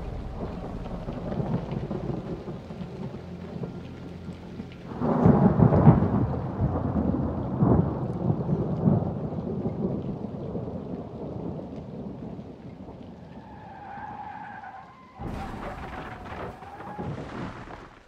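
Thunder rumbling with rain, swelling into a loud thunderclap about five seconds in and then rolling away in weaker rumbles. Near the end a steady high tone sounds over a sudden rush of noise.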